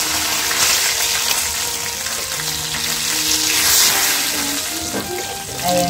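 Food frying in hot oil in a pan over a wood fire, a steady sizzle, stirred now and then with a metal slotted spoon.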